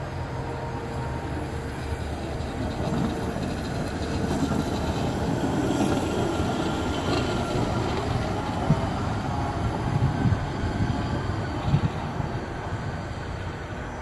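Union Pacific hi-rail pickup truck running on the rails past the listener: its engine and steel guide wheels rumble along the track, louder as it passes about halfway through, with a few sharp clicks from the wheels later on before it fades away.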